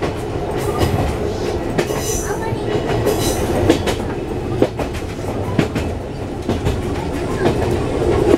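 Ōigawa Railway 16000 series electric train running, heard from inside the driver's cab: a steady running rumble with irregular clicks and knocks.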